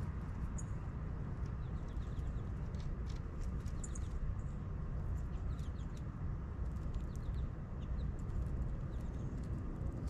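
Outdoor bird ambience: a steady low rumble with scattered short, high bird chirps and chips over it.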